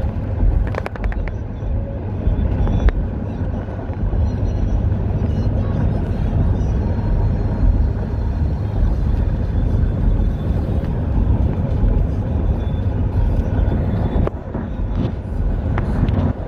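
Steady road noise of a car driving at speed, with a deep rumble of tyres and wind on the phone's microphone. A few light clicks about a second in and again near the end.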